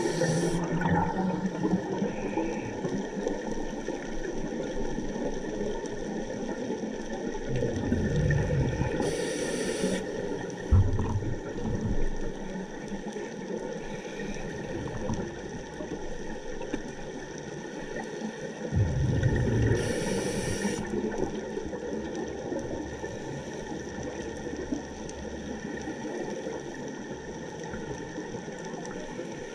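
Underwater ambience heard through a dive camera's housing, with a scuba regulator breathing twice, about ten seconds apart: each breath a low bubbling rush of exhaled air joined by a short hiss. A steady faint hiss lies underneath.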